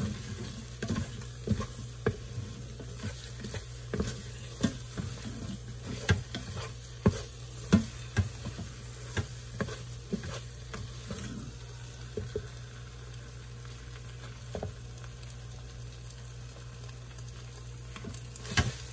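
Wooden spoon stirring and scraping thick rice porridge around a non-stick pan, with irregular knocks of the spoon against the pan that come thick and fast for the first ten seconds or so and grow sparser after. The porridge is being cooked down until it thickens.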